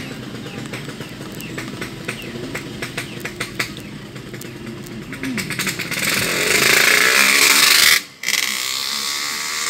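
Car driving slowly on a rough village road, heard from inside the cabin: a steady low engine and road rumble with small rattles and clicks. About six seconds in a much louder rushing hiss takes over, cuts out for a moment near eight seconds, then returns a little quieter.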